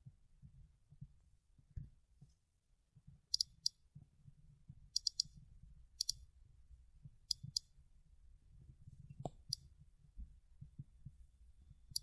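Short, sharp plastic clicks, mostly in quick pairs and threes, scattered over several seconds: an Insta360 action camera and its mount being handled and adjusted.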